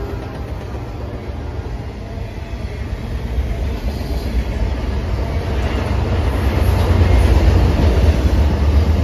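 CSX freight train's refrigerated boxcars and trailer-on-flatcar cars rolling past: a steady rumble of steel wheels on rail, growing louder from about three seconds in.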